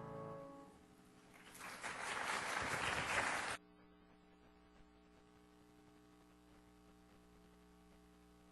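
A final piano chord dies away, then audience applause starts about a second and a half in and cuts off suddenly after about two seconds, leaving a faint steady electrical hum.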